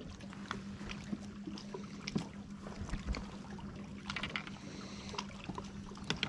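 Steady low hum of a bass boat's electric trolling motor holding position by a dock. Scattered light clicks and water lapping at the hull come over it.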